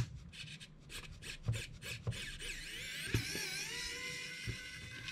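Screwdriver with a security bit backing a screw out of a hot glue gun's plastic housing: small clicks and scraping, then, from about halfway, a thin, steady squeak as the screw turns.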